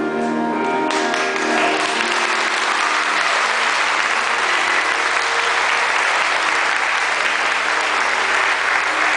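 Music ends about a second in and an audience starts clapping, steady applause that carries on.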